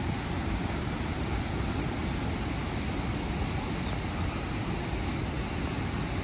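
Steady rushing of river water pouring through the open gates of a dam and churning downstream, a constant noise heaviest in the low range.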